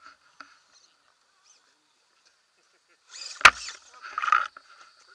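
An RC rock crawler tumbling off a rock ledge onto granite: a short clatter about three seconds in, with one sharp crack at its loudest, then a second, softer burst of noise.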